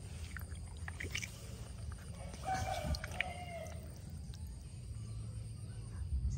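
A rooster crowing once, a short call about two and a half seconds in that falls in pitch at its end, with a few light clicks around it over a steady low rumble.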